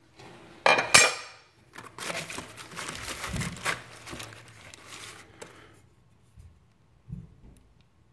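Two sharp metallic clanks just under a second in as the heavy sheet-metal body parts of a scale-model Komatsu PC700 excavator are knocked and set down, followed by a few seconds of crinkling and rustling as hands dig through bubble wrap in a cardboard box.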